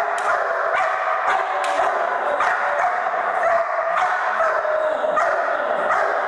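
German Shepherd barking and yipping rapidly and almost without pause, about two barks a second, worked up by a bite tug during protection training.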